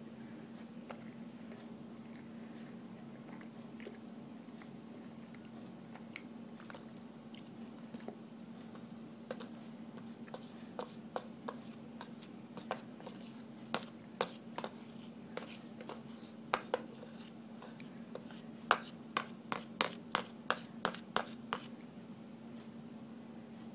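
Metal spoon scraping and digging into a block of packed cornstarch in a plastic container: a run of sharp scrapes and clicks that start about nine seconds in and come quicker and louder near the end, over a steady low hum.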